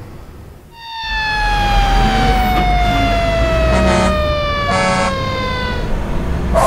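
Cartoon fire-truck sound effects: a low engine rumble under a siren tone that starts about a second in and slides slowly down in pitch for about five seconds. Two short horn blasts come about a second apart near the middle.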